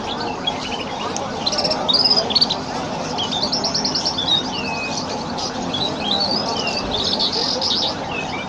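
Several small birds chirping and trilling at once in quick, high notes, over a low background hubbub.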